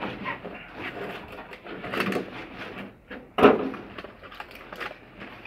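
Handling noise of a phone pressed against a fleece jacket sleeve: fabric rustling with scattered knocks, the loudest a sharp knock about three and a half seconds in.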